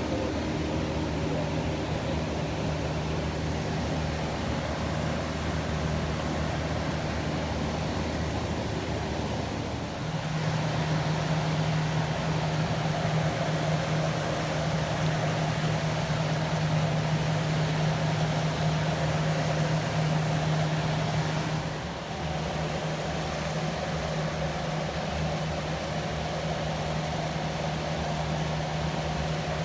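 Steady rushing of river water below a dam, with a low steady hum underneath; the sound jumps in level about ten seconds in and drops back near twenty-two seconds.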